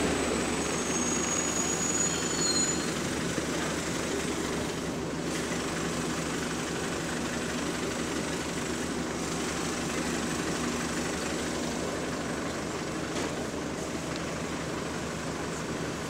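Diesel engine of a single-deck bus idling close by its rear engine grille: a steady low hum.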